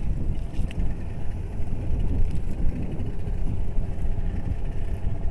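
Small fishing boat's engine running steadily at low speed, with wind rumbling on the microphone.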